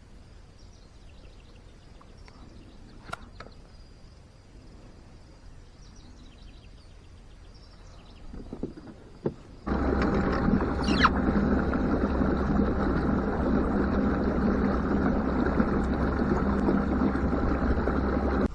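Quiet outdoor background with faint high chirps for the first half. About halfway in, a steady motor drone with a low hum cuts in abruptly and runs evenly.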